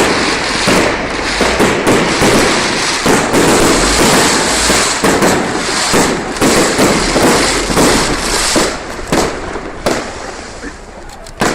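Aerial fireworks exploding in a rapid, almost continuous barrage of bangs and crackles. The barrage thins out near the end.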